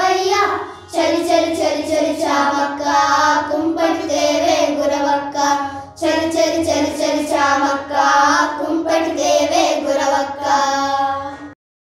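A group of young girls singing a Telugu Sankranti song together, in two phrases with short breaks for breath about a second in and around the middle. The singing cuts off suddenly near the end.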